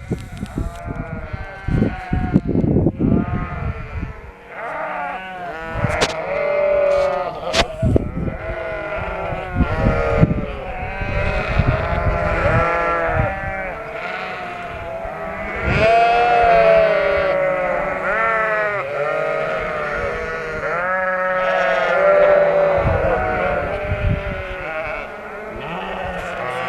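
A flock of ewes and lambs bleating without pause, many calls overlapping. A low rumble with a few knocks runs under the calls in the first few seconds.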